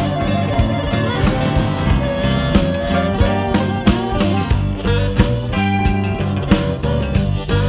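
Electric blues band playing an instrumental passage: an electric guitar line with bending notes over bass and a steady drum beat.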